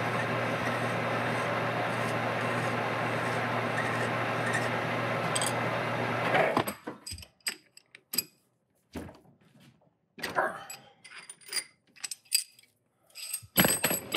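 Metal lathe running steadily with its motor hum, then switched off and stopping sharply about six and a half seconds in. After that, a series of short, light metallic clinks and taps.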